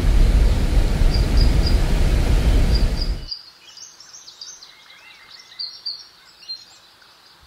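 Outdoor ambience: a loud, low, steady rumble with birds chirping in short repeated pairs. About three seconds in, the rumble cuts off suddenly, leaving faint, scattered bird chirps.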